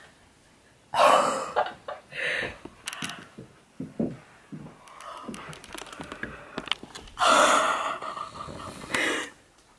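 A woman's breathy gasps and squeals of surprise, several short bursts and a longer one about seven seconds in.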